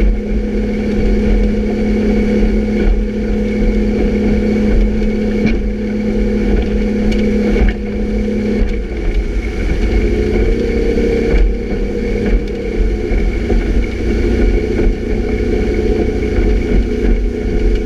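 Motorboat engine running at speed, with the rush of its churning wake. Its steady note shifts in pitch about halfway through.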